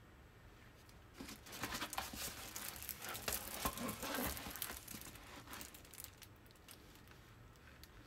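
A diamond painting canvas and its clear plastic cover sheet crinkling and rustling as the canvas is shifted and laid flat. A dense run of crackles starts about a second in and dies away after about four seconds, leaving a few light ticks.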